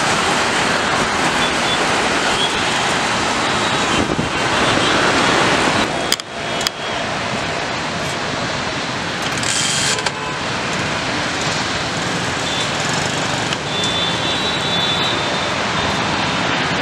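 Steady, dense road traffic noise. It dips briefly with two sharp clicks about six seconds in, then carries on a little quieter.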